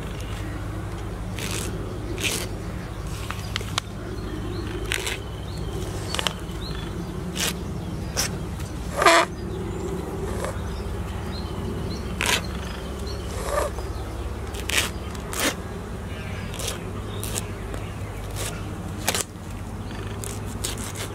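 Knife cutting up a whole plucked chicken on a wooden log chopping block: a dozen or so short, irregular scrapes and knocks of the blade on flesh and wood, the loudest about nine seconds in, over a steady low background hum.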